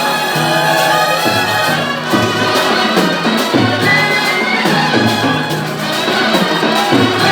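Brass band music playing loudly, with trumpets and trombones holding sustained notes.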